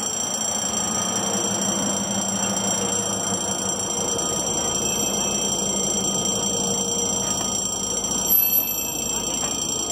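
EMD GR12 diesel-electric locomotive and its coaches rolling slowly past over a level crossing, a steady rumble of engine and wheels, against a continuous high electronic tone from the crossing's warning alarm. A brief louder sound stands out about eight seconds in.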